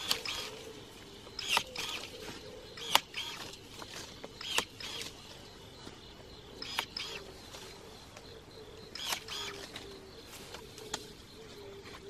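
Battery-powered electric pruning shears cutting apple water sprouts: a brief motor whir and a sharp snap as the blade closes, repeated several times a second or two apart. The loudest snap comes about three seconds in.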